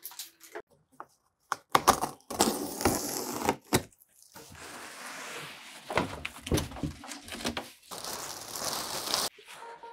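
Unpacking noises: knocks and tearing of a cardboard shipping box, then long crinkling of plastic sheeting as it is pulled off the machine. The rustling cuts off abruptly near the end, where music begins.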